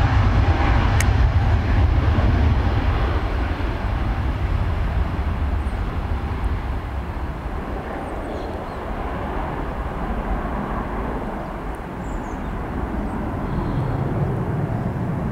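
Boeing 757-200's two jet engines at take-off power: a loud, low rumble as the airliner rolls down the runway and lifts off. It eases as the aircraft climbs away, then swells a little again near the end.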